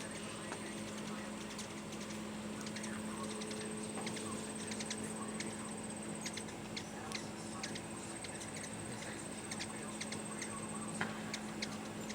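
Hummingbirds at feeders giving many short, high chips and squeaks, scattered irregularly, over a steady low hum.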